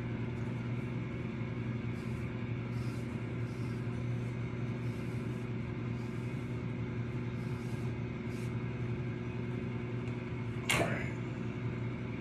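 Soft brushing strokes of a comb through hair, repeating every second or so, over a steady low hum. A single sharp knock near the end.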